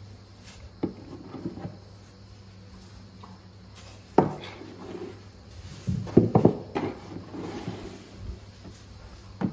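Knocks, taps and rubbing against a plastic feed trough as a baby elephant's trunk feels around in it for sweet potato pieces: a few light knocks about a second in, a sharper one about four seconds in, and a quick cluster of knocks a little after six seconds.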